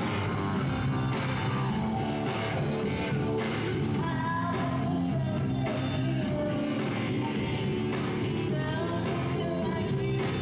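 A live band playing a trip-hop/electronic song: a woman singing lead over electric guitar, bass guitar and a Casio Privia keyboard, with a steady beat.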